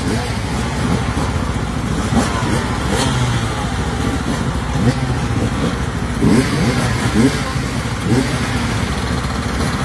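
A pack of enduro dirt bikes running together on a start line, with riders blipping their throttles so that many short revs rise and fall over the steady engine noise.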